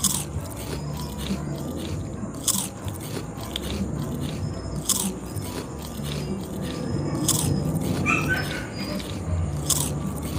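Close-up mukbang eating sounds: a person biting and chewing food, with some crunching.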